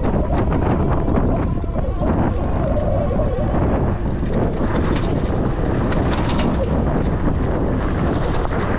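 Steady wind buffeting on the microphone of an electric bike riding off-road, with scattered small clicks and rattles.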